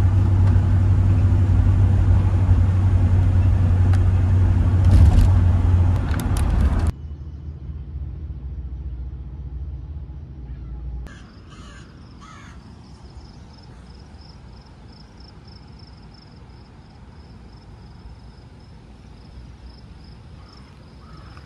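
Loud low rumble for about seven seconds that cuts off abruptly, then a quieter rumble. About eleven seconds in, a crow caws a couple of times, and crickets chirp steadily after that.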